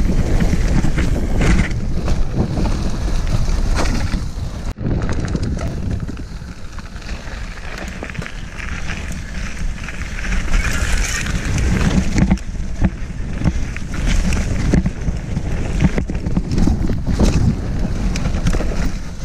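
Mountain bike ridden along a dirt forest trail: wind buffeting the microphone over the rumble of the tyres on the dirt and the rattle of the bike. The sound cuts out for an instant about five seconds in.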